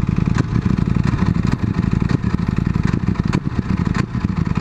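Sport bike engine idling at a standstill, a fast, even pulsing throb, with a few sharp clicks scattered through it.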